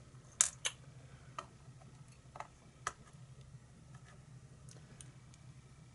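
Small metal clicks and taps of lock pins and springs being handled and fitted into a lock core during reassembly: a few scattered clicks, the loudest about half a second in, over a faint low hum.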